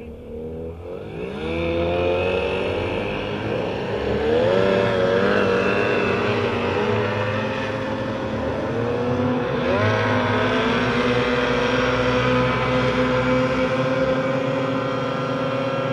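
Engines of several small racing boats revving up and accelerating away across the water, their overlapping engine notes climbing in pitch over the first few seconds. They then run at high, steady speed, with another rise in pitch about ten seconds in.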